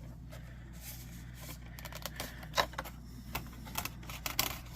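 A cardboard mail package being handled and opened by hand: scattered clicks, scrapes and crinkles, with a few sharper snaps from about two and a half seconds in.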